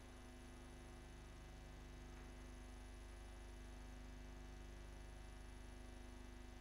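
Near silence: room tone with a steady hum.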